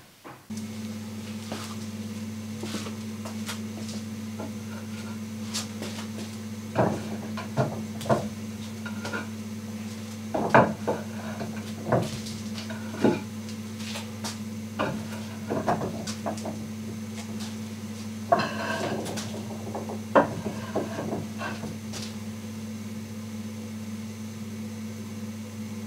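Concrete paving slabs knocking and clacking against each other and the concrete floor as they are handled and set down, in irregular strikes and short clusters, over a steady low hum.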